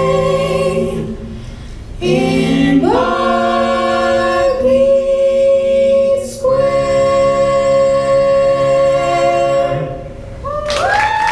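A cappella vocal jazz ensemble singing the closing phrases in sustained close-harmony chords, ending on one long held chord. Applause breaks out near the end.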